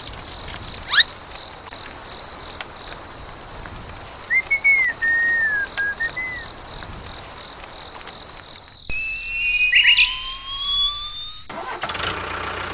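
A string of whistled glides: a quick rising sweep about a second in, a few short up-and-down whistles a few seconds later, and two long rising whistles near the end, over a faint steady high whine.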